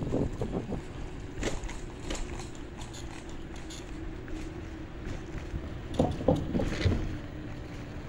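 Electric scooter riding along a wooden boardwalk: a low rumble and rattle of the wheels running over the boards, with a faint steady hum.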